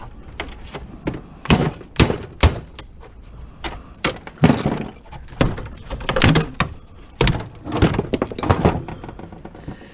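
Hammer blows on a scrap appliance's sheet-metal casing, about ten sharp, irregular hits with some clattering, knocking the outer frame loose from its screws.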